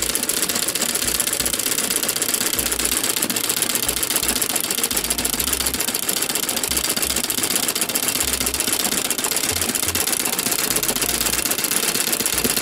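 Straight-stitch sewing machine running steadily at speed, its needle clattering rapidly and evenly as it sews free-motion embroidery fill stitches.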